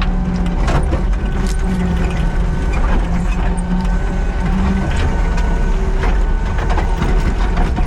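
Kubota SVL97-2 compact track loader's four-cylinder diesel engine running steadily under load as it scrapes down high spots, with frequent clanks and rattles from the machine.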